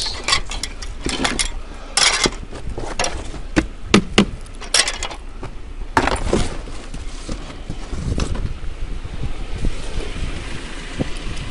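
Steel garden ornaments clinking and clattering as they are pulled out of a skip and handled: a run of sharp metallic knocks and rattles, thicker in the first half and sparser later.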